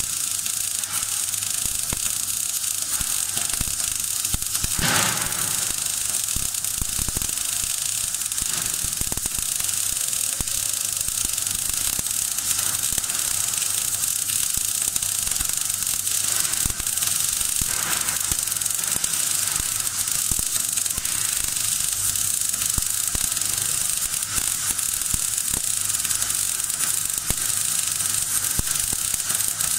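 MAG (gas metal arc) welding arc running continuously on a vertical-up keyhole root pass in steel plate at about 18 volts: a steady sizzling hiss with fine, dense crackle, the sound of short-circuit transfer.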